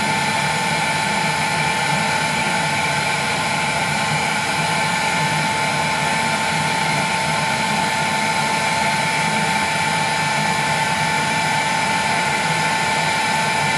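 Heat gun running steadily, a constant whine over a rush of blown air, heating the face of a colour picture tube to loosen the bonding under its safety lens.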